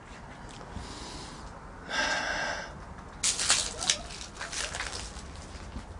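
A short breathy hiss about two seconds in, then a burst of close rustling and scraping with sharp clicks as the handheld camera is swung about.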